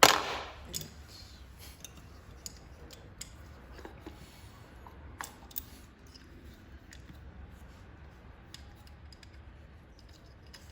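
A sharp metallic clank, then sparse light clicks and taps of hand tools and an ignition coil being handled while the coil is refitted over a spark plug.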